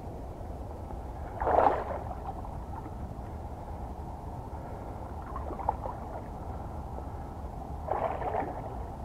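Water splashing in short surges, loudest about a second and a half in and again near the end, over a steady low rumble.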